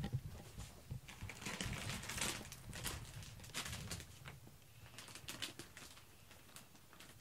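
Cats scratching and rustling on cardboard: a run of short, soft scratchy scrapes, busiest in the first half and thinning out toward the end.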